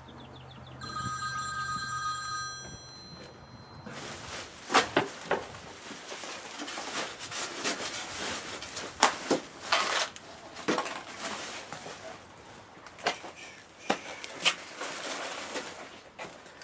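A steady electronic ringing tone, like a phone ringing, for about two seconds. It is followed by a long stretch of rustling and scraping broken by sharp knocks.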